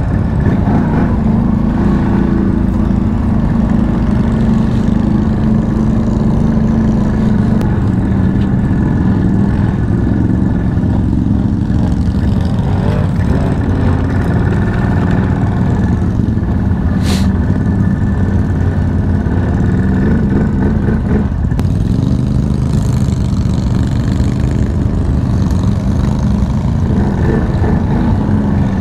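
CF Moto CFORCE 1000 ATV engine running while riding, its pitch rising and falling with the throttle. A single brief sharp tick comes about two-thirds of the way through.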